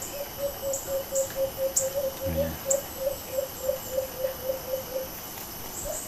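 White-eared brown dove calling: a steady run of short, low hooting notes, about four a second, that stops about five seconds in. A few faint high ticks sound over it.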